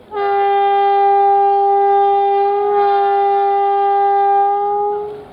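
Electric locomotive's air horn sounding one long, steady blast of about five seconds, two tones together, wavering slightly about halfway through before it cuts off.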